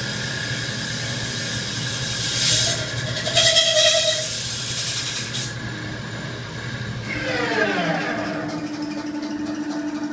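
Rim-refinishing CNC lathe running with a steady mechanical hum. A loud hiss comes in bursts from about two and a half to five and a half seconds in. About seven seconds in, a whine falls in pitch and settles into a steady low hum.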